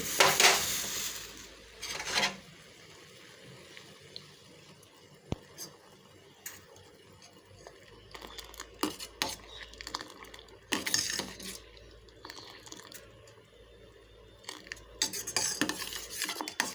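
Metal kitchen utensils clinking and scraping against a pan off and on while masala tea is handled on the stove. The clatter is loudest in the first couple of seconds, with further bursts about eleven seconds in and near the end.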